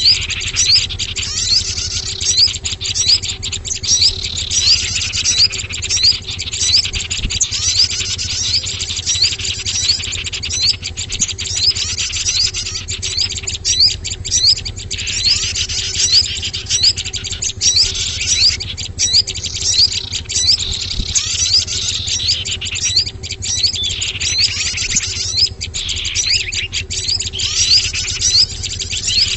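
Bird-lure recording of small songbirds: a dense, continuous mix of rapid high chirps and short twittering calls, over a faint steady low hum. The calls are meant to draw in small wild birds.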